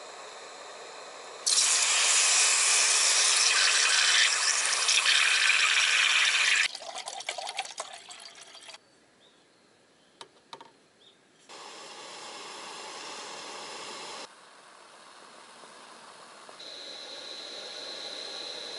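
Portable gas-canister camping stove burner hissing under a pot. The hiss turns loud and rushing for about five seconds, then gives way to clicks and clatter as the pot is handled. It stops and restarts in abrupt steps.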